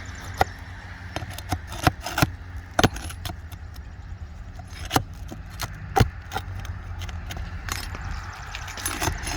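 Irregular sharp clicks, knocks and scrapes of a tool working under brittle asphalt shingles to get at and pull roofing nails, over a steady low rumble.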